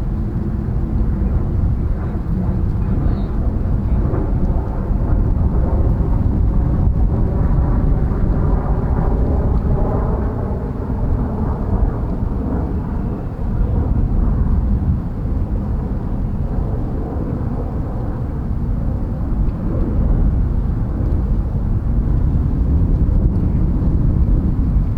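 Wind buffeting the microphone, a steady low rumble, with a faint droning hum for several seconds in the middle.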